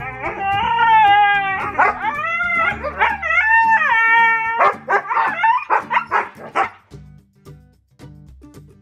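Siberian husky puppies making long, high, wavering whining calls while they play-fight, over background music; the calls stop about seven seconds in and the music carries on.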